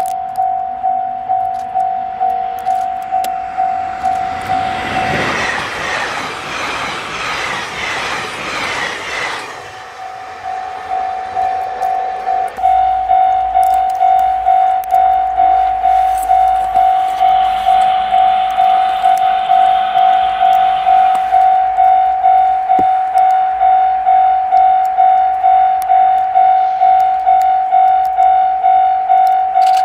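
Railway level-crossing alarm ringing a steady electronic tone that repeats a little more than once a second, while a 789 series limited express electric train rushes past for about five seconds, a few seconds in. After a cut about halfway, the crossing alarm rings on by itself as the next train approaches far off.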